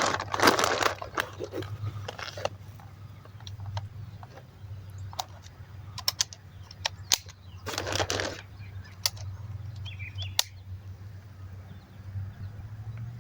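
Handling noise from the Umarex T4e HDS 68 double-barrel launcher between shots: rustling and a handful of sharp, separate clicks, over a steady low hum.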